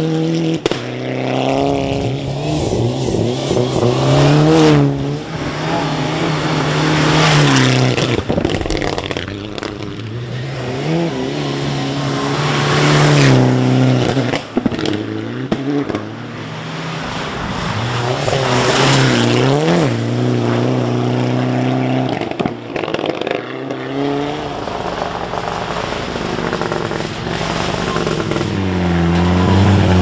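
Mitsubishi Lancer Evo IX rally car's turbocharged four-cylinder engine revving hard on a gravel stage, its pitch climbing and dropping again and again through gear changes, with surges of tyre and gravel noise. Near the end the engine settles to a low, steadier note as the car rolls slowly close by.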